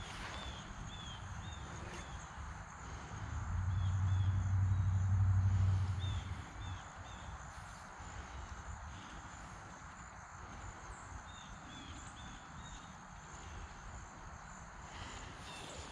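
Rural outdoor ambience: a steady hiss of background noise with short high chirps repeating in groups of two or three. About three seconds in, a low rumble swells, holds for a couple of seconds and fades.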